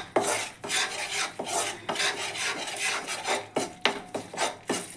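Ladle scraping and stirring wheat flour roasting in ghee in a metal kadhai: a rasping scrape with each stroke, repeated a few times a second. The flour is kept moving so it does not stick to the bottom while it browns.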